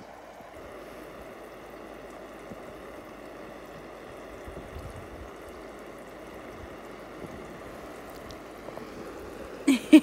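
Hose-fed splash-pad pool fountain spraying a steady hiss of water jets. Near the end come a few short, loud calls.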